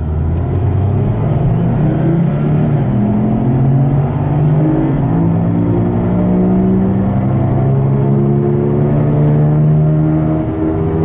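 Saturn Ion heard from inside the car as it speeds up on the road: a loud droning hum that climbs in pitch over the first few seconds, steps down once, then holds steady. The drone is the sign of a worn front driver's-side wheel bearing, which the owner had taken for bad tyres.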